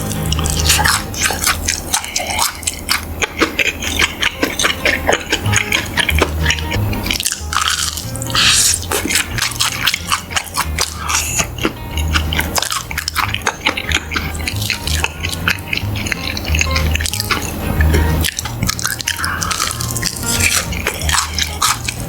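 Close-miked ASMR eating: a dense run of quick, crisp and wet clicks from biting and chewing, over background music with a pulsing bass line.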